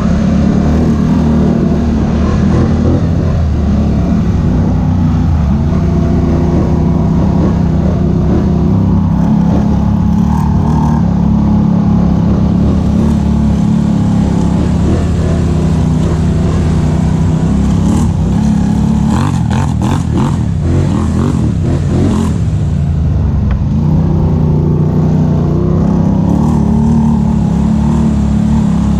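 ATV engine running steadily while riding a trail, its drone rising and easing a little with the throttle. A short run of knocks and rattles comes about two-thirds of the way in.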